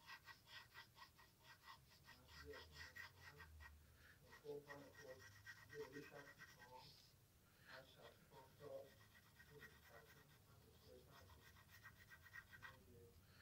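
Graphite pencil sketching on lined notebook paper: quick back-and-forth scratchy strokes, about five a second, in several faint runs with short pauses between them.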